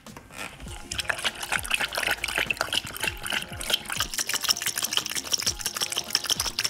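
A blue-nose pit bull lapping water from a plastic dish: quick, steady wet laps of the tongue, starting about a second in.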